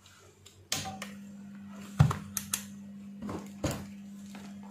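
Sharp clicks and knocks of test leads and a handheld digital multimeter being handled on a workbench, the loudest about two seconds in. A steady low electrical hum starts abruptly about a second in and carries on underneath.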